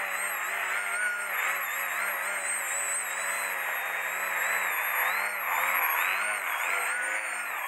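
Brushless electric motor (SunnySky X2204, 1800 KV) and propeller of a foam RC biplane whining while the plane hovers nose-up. The pitch wavers up and down with constant throttle corrections, over a steady rush of propeller wash.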